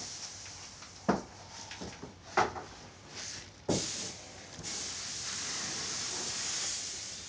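Aerosol spray paint hissing in bursts, the longest near the end, with three sharp knocks in between.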